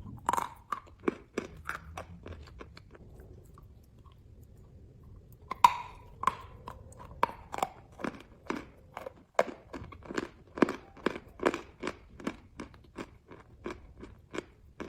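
A person biting into chalk and chewing it in crisp crunches. There is a sharp bite right at the start with crunching after it, a quieter pause, then a loud bite about five and a half seconds in, followed by steady chewing crunches about two a second.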